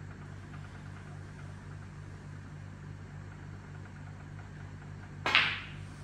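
Snooker shot near the end: one sharp click as the cue ball is struck and smacks into a red ball. The cue ball all but stops and the red runs on.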